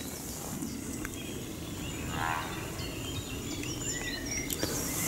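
Small birds chirping faintly, several short high chirps over a steady low rumble, with a brief buzzy call about two seconds in.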